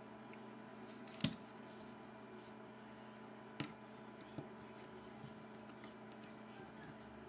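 A screwdriver working the small handle screws of a titanium-handled folding knife, giving a few sharp metal clicks (the loudest about a second in, two more near the middle) over a steady faint hum.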